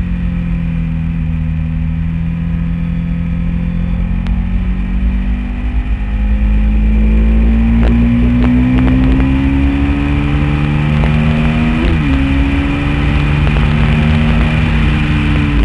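Honda VTR1000 SP1's 90-degree V-twin engine at speed, heard from a camera on the bike with wind rumbling on the microphone. The engine runs fairly level at first, then gets louder about six seconds in and climbs steadily in pitch as it accelerates, with a brief dip in pitch about twelve seconds in.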